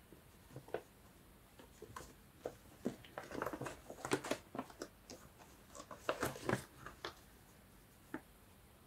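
Paper and card pieces being handled on a craft table: irregular light rustles, taps and crinkles, busiest in the middle and again around six seconds in.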